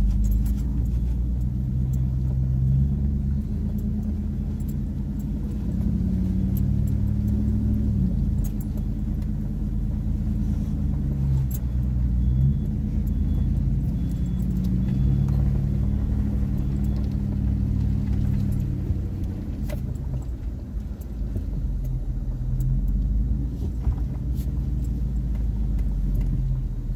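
Chevrolet Silverado pickup's engine running at low revs while crawling a rough trail in four-wheel-drive low, its note rising twice with the throttle and easing back. Occasional clicks and light rattles from loose things in the cab.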